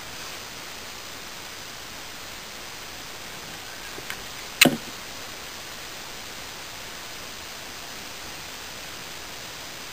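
Steady hiss of recording noise from the camera's microphone, with two faint clicks and then one sharp knock about halfway through.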